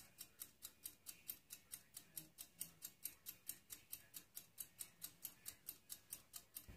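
Faint, steady, rapid mechanical ticking, about five ticks a second, with one soft low thump near the end.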